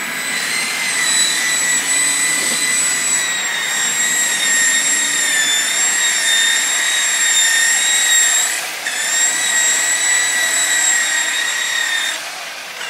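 Corded electric rotary buffer with a wool pad, running at about 3,000 RPM while polishing stainless diamond plate: a steady high motor whine. Its pitch dips briefly twice as the pad is pressed on the metal, then sags near the end.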